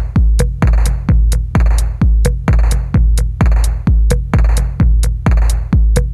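Electronic music with a steady, heavy kick drum a little over two beats a second and crisp hi-hat clicks between the beats.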